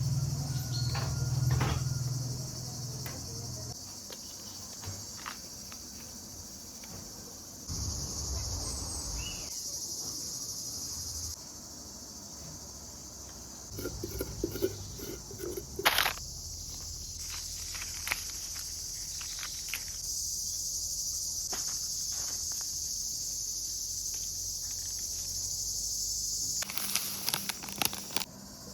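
A chorus of insects chirring steadily and high-pitched, with scattered light taps and knocks. The sound changes abruptly several times, as if different outdoor takes follow one another.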